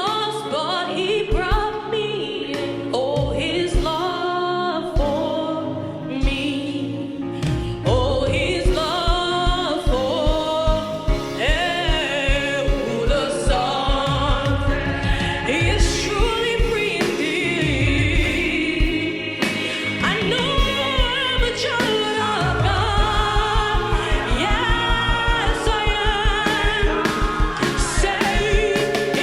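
Gospel praise music: several voices singing over a band with a drum beat, the drum strokes coming faster from about two-thirds of the way through.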